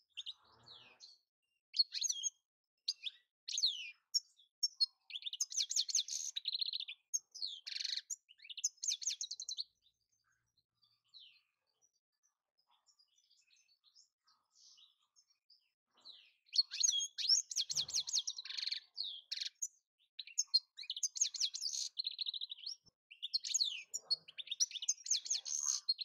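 European goldfinch singing: rapid twittering runs of chirps, buzzy trills and quick gliding notes, in two bouts with a quiet pause of several seconds between them.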